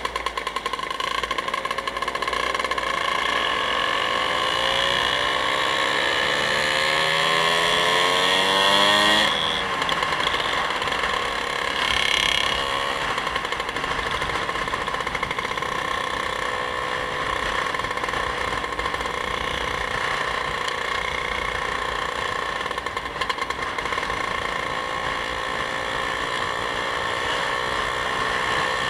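Vehicle engine under way, accelerating with a rising pitch for about nine seconds, then dropping suddenly at a gear change and settling into a steady cruise, with a slight rise again near the end.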